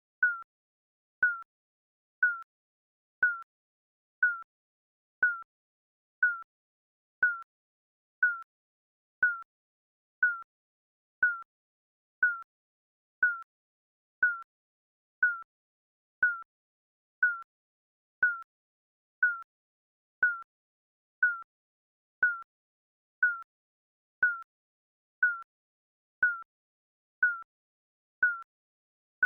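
Digital countdown timer beeping once a second: a short, high beep that dips slightly in pitch, with silence between beeps.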